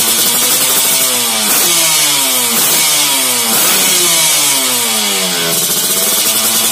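Yamaha RX-King two-stroke single-cylinder engine running through a YKJ Racing aftermarket exhaust with a segmented lobster-style header, idling and then revved in about four quick blips roughly a second apart, each rising in pitch and dropping off sharply. It falls back to a steady idle near the end.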